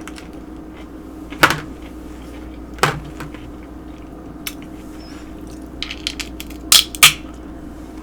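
A few sharp clicks and knocks of eating and handling dishware: one about a second and a half in, another near the three-second mark, and two close together near the end, over a faint steady hum.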